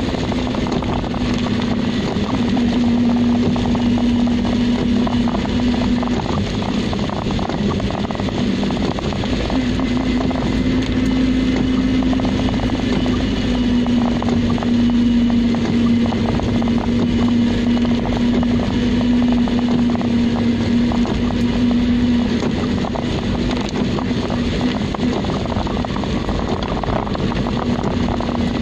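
Car engine and tyres heard from inside the cabin while driving on a wet road: a steady drone holding one pitch over a hiss of road noise.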